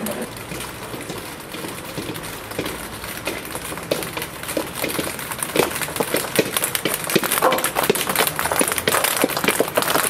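Many ping-pong balls bouncing down stone steps: a clatter of light clicks, sparse at first and growing dense from about halfway.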